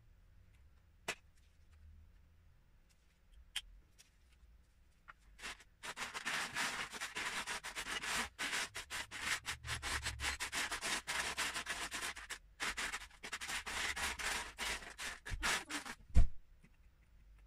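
Loose Lego bricks rattling and scraping as a hand rummages through them in a plastic storage tub, for about ten seconds. Before that come a few single clicks, and near the end a sharp thump.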